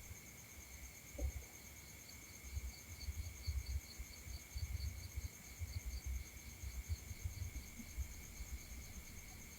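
Insects chirping steadily, a faint high pulsing trill, with irregular low rumbles underneath.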